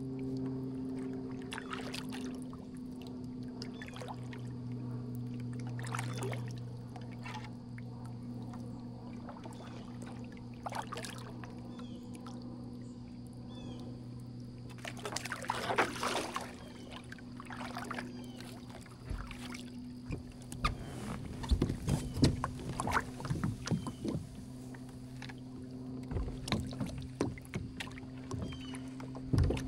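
Kayak paddle strokes dipping and splashing in shallow creek water, with scattered knocks that are loudest and most frequent in the second half. A low, steady music drone runs underneath.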